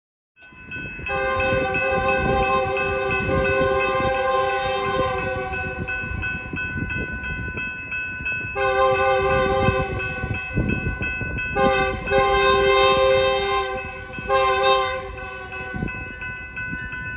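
Diesel freight locomotive's multi-note air horn sounding a series of blasts for a road crossing as the train approaches: one long blast of about five seconds, then three shorter blasts with pauses of a second or two between them.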